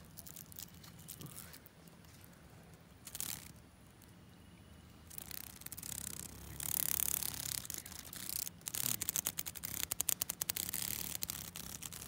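A cicada held between the fingers giving its harsh buzzing distress call, starting about five seconds in and breaking into rapid pulses near the end.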